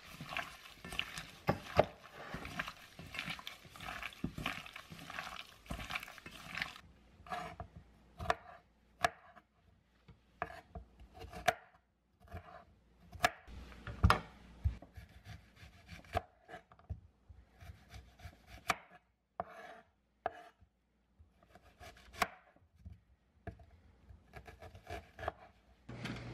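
Gloved hands working chicken pieces in a stainless steel bowl, a dense wet rubbing for about the first seven seconds. Then a knife cuts an onion on a bamboo cutting board, with separate sharp knocks of the blade on the board.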